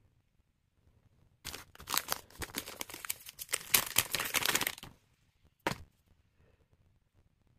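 Crinkly plastic packaging being handled and pulled open: a dense run of sharp crackles lasting about three and a half seconds, then one short crackle about a second later.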